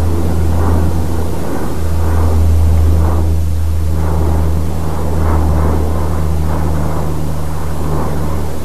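Airplane flying over, a loud steady low engine drone with a wavering rush above it.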